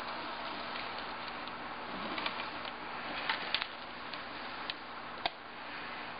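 Aluminum foil tape being pressed and smoothed onto the edge of a glass display case by hand, giving a handful of small sharp clicks and crinkles over a steady background hiss.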